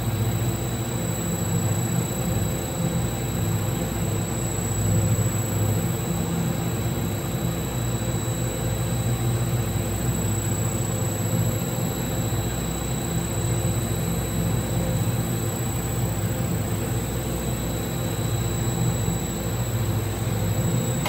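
Steady mechanical hum with an even hiss and a thin, high whine held at one pitch, unchanging throughout.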